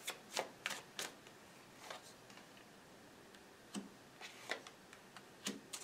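Faint clicks and taps of tarot cards being handled and laid down on a wooden table: a quick run of about four in the first second, then a few scattered taps.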